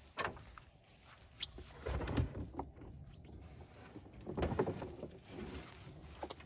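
Knocks and scrapes of a small plastic kayak being handled and unloaded, in three clusters: one at the start, one about two seconds in, and the loudest about four and a half seconds in.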